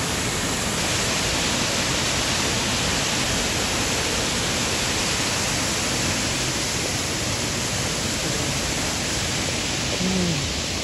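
Small waterfall spilling between rocks into a pool, a steady rush of water.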